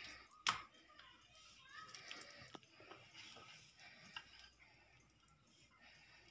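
Faint handling sounds of oiled parotta dough being lifted and spread and a wooden rolling pin working it on the greased surface, with one sharp knock about half a second in and a few fainter clicks after.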